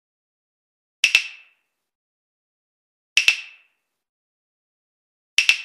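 Three sharp double clacks about two seconds apart, each a pair of quick strikes with a short bright ring that dies away fast.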